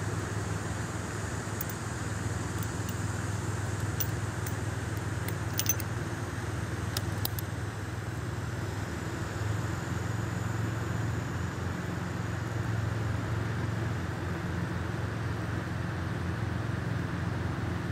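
Steady low rumble of background noise, with a handful of faint sharp metallic clicks in the first half: a Smith & Wesson Model 19 revolver being handled with its cylinder swung open after firing.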